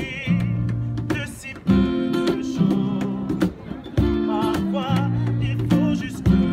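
Live acoustic guitar strumming chords with a man singing over it and percussion hits every couple of seconds.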